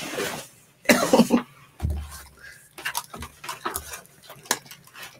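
A person coughs once, about a second in, followed by a soft low thump and a run of light clicks and taps.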